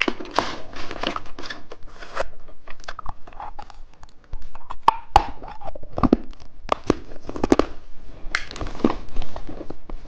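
Plastic candy wrapper crinkling and tearing as a lollipop is handled and unwrapped, with irregular crackles and sharp clicks.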